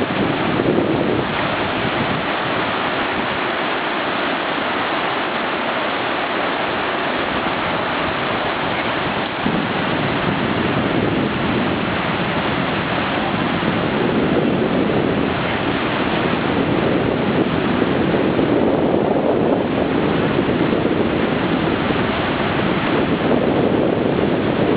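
River rapid: whitewater rushing over boulders, a steady, even rush of water.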